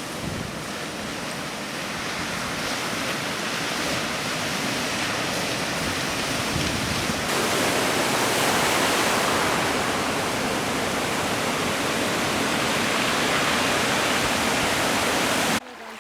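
Steady rushing water with no distinct events. It gets louder about seven seconds in and cuts off abruptly just before the end.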